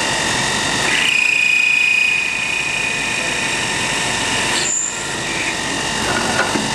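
MSI ChamferMate chamfering machine's turning head running and cutting a chamfer on the end of a metal bar: a steady machine whine with a louder high-pitched ring from about one to two seconds in.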